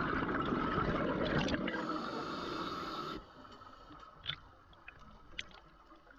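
Underwater water noise on a diver's camera, rushing and bubbling for about three seconds, then cutting off abruptly. After that it is faint, with a couple of short sharp clicks.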